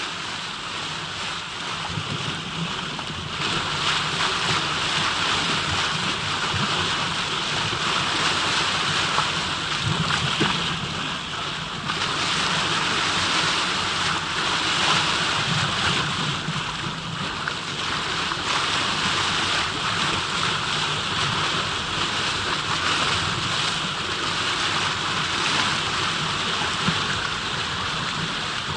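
Steady rushing water, a dense even wash of noise with a low rumble beneath it.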